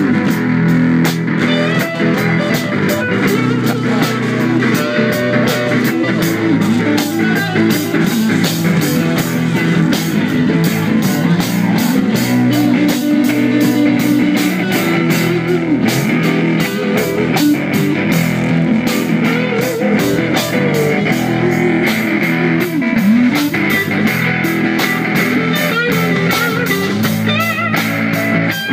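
Live band playing a blues-rock instrumental passage: electric guitar over bass and drum kit, with a steady cymbal beat.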